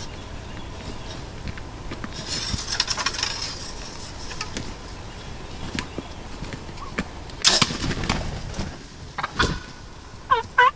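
Light rustling and scattered clicks inside a hunting ground blind, with a sharp snap about three-quarters of the way through. A wild turkey gobbler begins to gobble right at the end.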